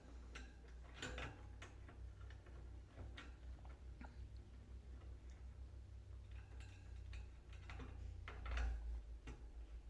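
Faint, irregular small clicks and taps over a low steady hum.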